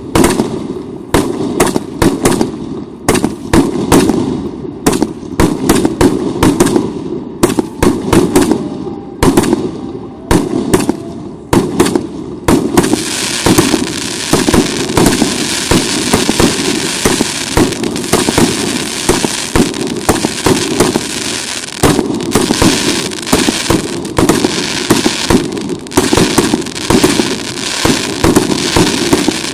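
Russian Pyrotechnics 'Gardens of Semiramis' RC885 fireworks cake (150 shots, 1.2-inch calibre) firing shot after shot in rapid succession, with bursts overhead. About 13 seconds in, a dense crackling from crackle-star effects joins the shots and carries on.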